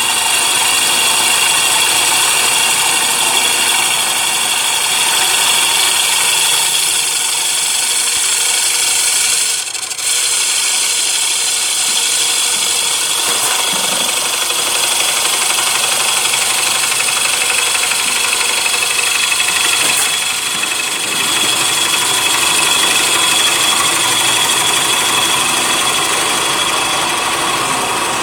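CNC wood lathe turning a wooden plate, running steadily with several high whining tones over a constant hiss. The sound dips briefly about ten seconds in.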